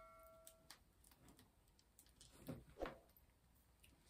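Near silence: a bell-like notification chime fades out in the first moment, then a couple of faint soft knocks come about two and a half seconds in.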